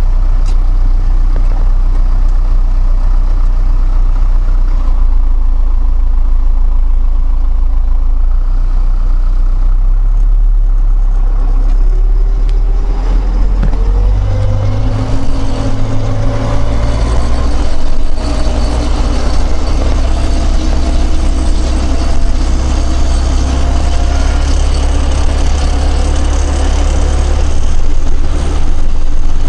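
Heavy tractor diesel engine running steadily. About halfway through, the engine speed climbs over a few seconds, then holds at the higher speed.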